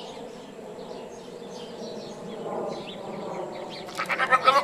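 Birds calling: faint high chirps throughout, then a louder burst of rapid pulsed calls near the end.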